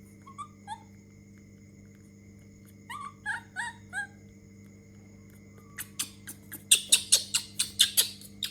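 Short, high squeaking calls from a young monkey: two near the start and a quick string of four about three seconds in. These are followed by a loud, fast run of sharp clicks, about five a second, starting about six seconds in, over a faint steady electrical hum.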